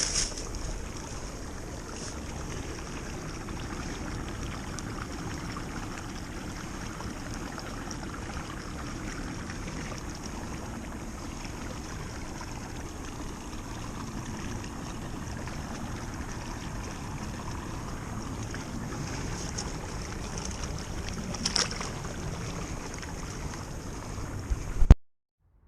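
Steady rushing outdoor noise, heaviest in the low end, with a few short high chirps near the start and again about 21 seconds in. It cuts off abruptly with a click near the end.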